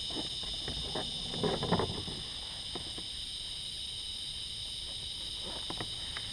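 Steady high-pitched chorus of insects. A few light clicks and a brief rustle of gear being handled come about one and a half seconds in, with more faint clicks near the end.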